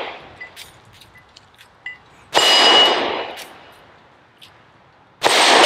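Two revolver shots about three seconds apart, each followed by the ring of a struck steel target. At the start the ring of an earlier shot is fading, and a few faint clicks come between the shots.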